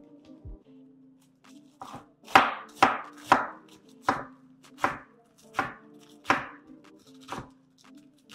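Knife chopping a half head of lettuce on a cutting board: a run of sharp chops about one to two a second, starting about two seconds in.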